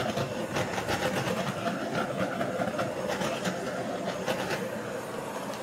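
Handheld gas torch burning with a steady hiss as its flame is played over wet acrylic pour paint.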